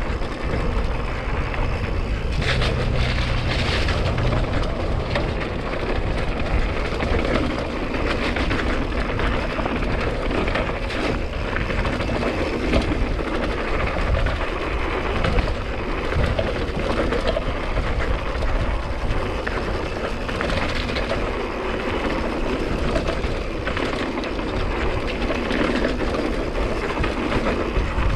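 Hardtail mountain bike descending a rough, rocky dirt road: tyres crunching over rock and gravel and the bike rattling and knocking over the bumps without letup.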